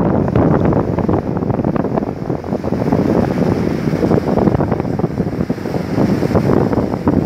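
Strong wind buffeting the microphone, with ocean surf on the Atlantic shore underneath.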